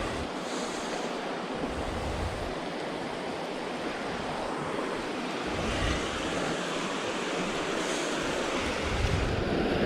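Steady rushing outdoor noise of wind, with gusts buffeting the microphone in low rumbles a few times.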